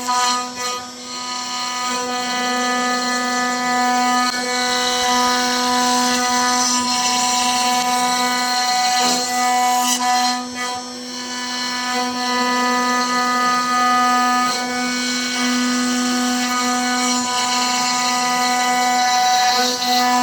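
CNC router spindle running with a steady, high whine while it cuts wood, dipping briefly about a second in and again about nine seconds in.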